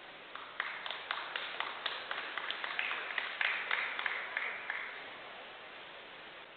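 Audience applause in a snooker arena: scattered clapping that builds for a few seconds, then fades out.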